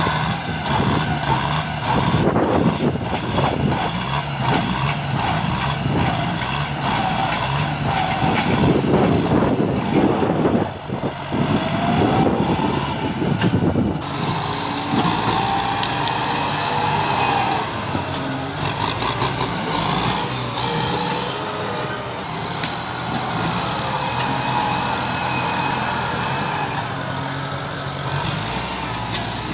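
Kubota farm tractors' diesel engines working hard under load as a front dozer blade shoves through brush and small trees. Dense irregular knocks and cracks fill the first half, the engine revs up about halfway through, and the later part is steadier engine running with a humming whine.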